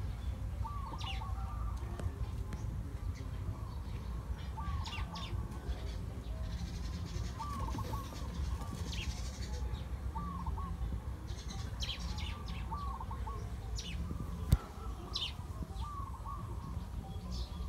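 Birds calling in the background: a short call repeated about every second and a half, with scattered high chirps, over a steady low rumble. A single sharp click about three-quarters of the way through.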